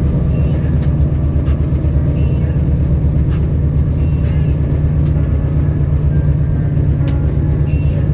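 Diesel locomotive engine running steadily with a deep, fast pulsing throb, and a couple of faint clicks.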